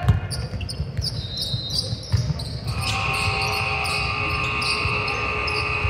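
Basketball bouncing on a gym floor during play, repeated thumps with short clicks and squeaks from the court. About halfway through, a steady high tone starts and holds.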